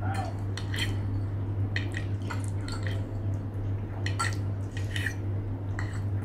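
Metal fork clinking and scraping on a ceramic plate while cutting into soft baked lasagna, a scatter of short clicks over a steady low hum.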